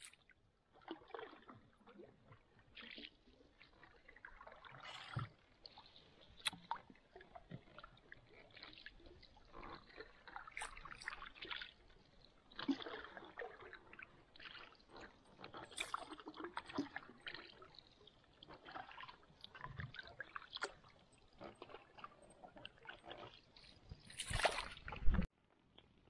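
Canoe paddles dipping and pulling through calm water: soft, irregular swishes with small splashes and drips from the blades, a little louder near the end.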